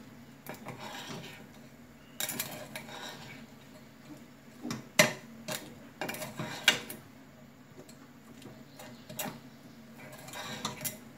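A metal utensil scraping and clinking against a small enamel pot while sliced almonds are stirred gently through sticky caramel to make nougatine. The scrapes come in short spells, with a few sharp clinks in the middle.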